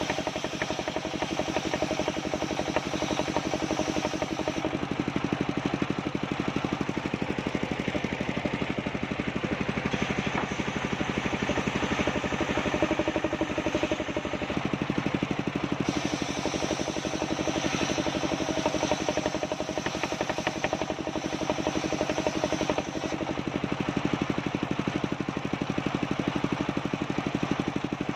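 Engine of a homemade circular saw rig running steadily, with a rapid pulsing beat and its tone shifting a few times.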